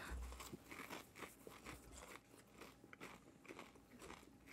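Faint crunching as two people chew mouthfuls of a taco stuffed with crumbled hard taco shell, irregular crisp crackles several times a second.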